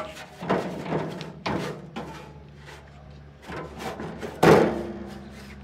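A series of knocks and thuds, about seven in all and irregularly spaced, the loudest about four and a half seconds in, over a faint steady low hum.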